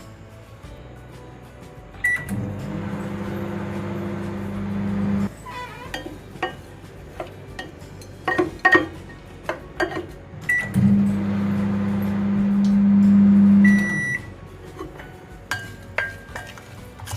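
Microwave oven beeping as it is started, then running with a steady hum for about three seconds before stopping. Clicks and clinks follow, then another beep and a second run of about three seconds that ends with a longer beep.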